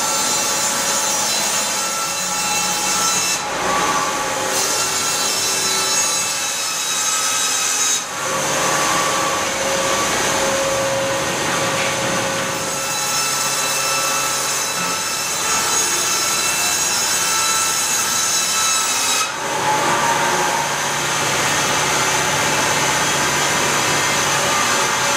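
Pilous CTR 800 S log band sawmill running and cutting through a log, with a steady hiss and whine from the band blade in the wood. The sound changes abruptly about 3, 8 and 19 seconds in as takes are cut together.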